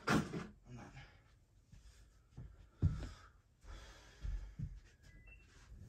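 A person's breathing and sighs close to the microphone, with a few soft low thumps about three and four and a half seconds in.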